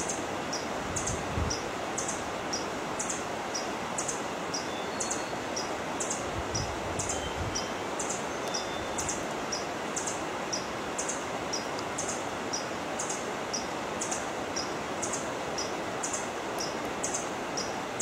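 Steady hiss of forest ambience, with a short, high chirp repeating evenly about twice a second throughout.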